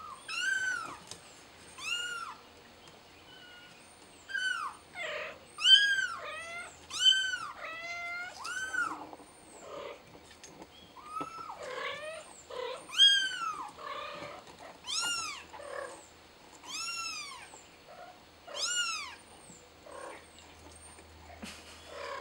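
Kitten meowing over and over in high, arching cries, one every second or two, each rising and falling in pitch: distress calls from a kitten stuck up in a plant pot, calling for help to get down.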